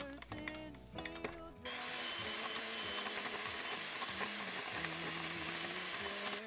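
Background music, then, about a second and a half in, an electric hand mixer starts running steadily, its beaters whipping egg whites and powdered sugar in a glass bowl into stiff meringue. It stops just before the end as the music returns.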